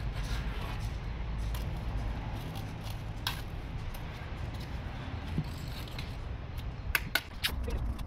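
Steel brick trowel scraping and tapping against brick and mortar as mortar is packed into the joints above a steel beam. Sharp clicks come once about three seconds in and several close together near the end, over a low steady rumble.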